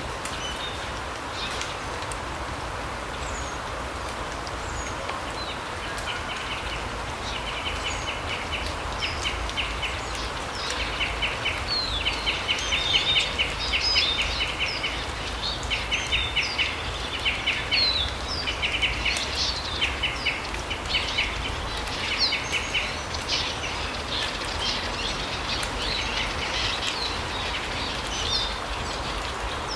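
Forest birds calling over a steady outdoor hiss. Starting about six seconds in come repeated short, rapid rattling trills, with scattered high chirps; the trills fade out near the end.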